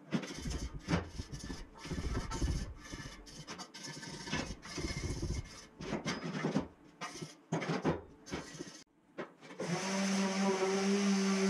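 Chopped, sped-up stretches of hand work on a steel frame: scraping, rubbing and clattering, broken by abrupt cuts. Near the end, a handheld power tool starts on the steel seat plate and runs with a steady humming whine.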